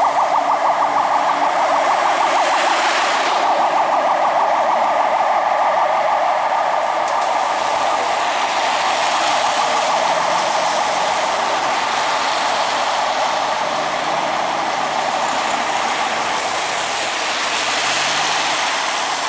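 Fire engine's yelp siren sounding in a rapid warble, over the hiss of tyres on a wet road; it grows a little fainter as the truck moves away.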